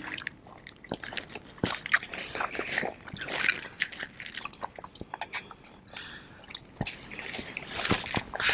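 Close chewing, biting and wet smacking as chicken wings are eaten face-first straight off the plate, with no hands: a string of irregular clicks and slurpy mouth noises.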